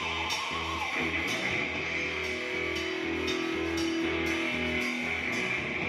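Live band playing a rock-style song: electric guitar over sustained bass notes and a steady drum beat.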